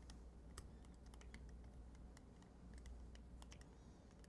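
Faint, irregular small clicks and ticks of a slotted screwdriver working inside the plastic injector housing of a Fleck 2510 control valve, loosening the lower part of the two-piece injector.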